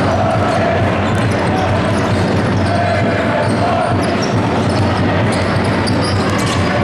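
Basketball being bounced on the court during a game, over the steady noise of a large crowd in a sports hall.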